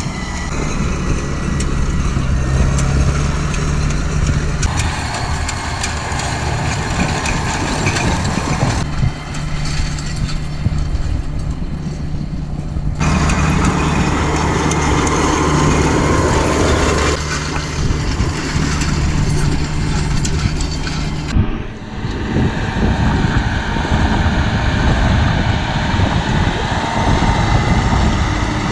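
Diesel farm tractor engines running steadily while pulling hay tedding and raking machinery, first a green tractor with a rotary tedder, then a red tractor with a rotary rake. The engine note jumps to a different pitch and level at several cuts, most sharply about three quarters of the way through.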